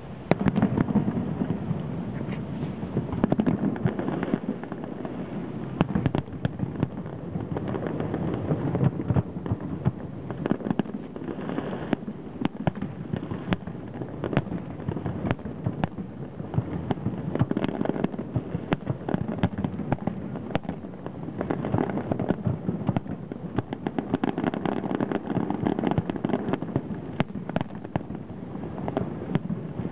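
Lantern Festival aerial fireworks display: a sudden loud bang right at the start, then a continuous barrage of booms and crackles, with many shells bursting every second.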